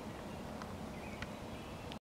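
Outdoor ambience: a steady low rumble with faint, short, high bird chirps and a few soft clicks.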